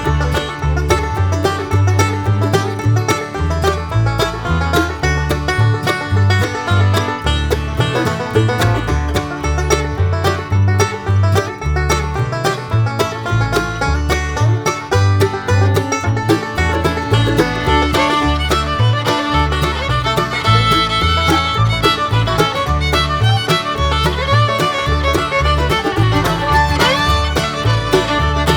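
Upbeat bluegrass-style background music: banjo and fiddle over guitar and a steady bass beat.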